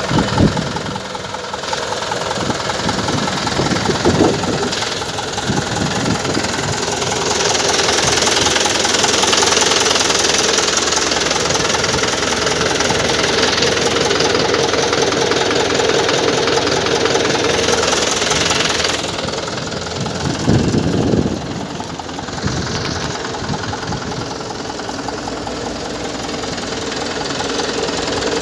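Mahindra 475 DI tractor's four-cylinder diesel engine idling with a steady clatter, with a few low thumps along the way.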